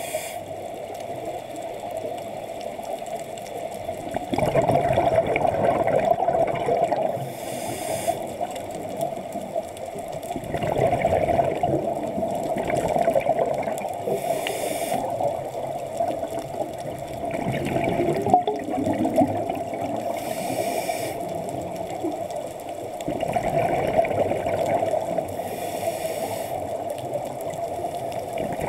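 Scuba diver breathing through a regulator underwater: a short inhale hiss about every six seconds, with a few seconds of exhaled bubbles gurgling between them.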